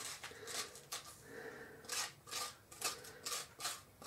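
Raw spaghetti squash half being scraped out by hand, a run of short rasping strokes about two to three a second with a brief pause about a second in, as the last seeds and stringy pulp are cleared from the cavity.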